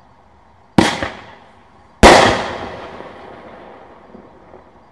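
Keystone Super 6 single-shot firework tube firing a crackle-with-green-coconut shell: a sharp launch bang about a second in, then a louder burst just over a second later that trails off in crackling for about two seconds.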